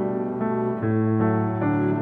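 Instrumental music: held notes and chords that change about every half second.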